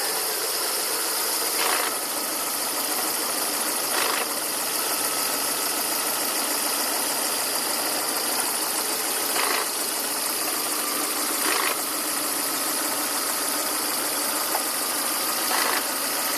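Volvo S40/V40 1.8-litre petrol engine idling with a steady rasping, wheezing noise. Five short louder puffs come at uneven intervals of two to four seconds. The owner hears this rasp at idle as a fault of unknown cause.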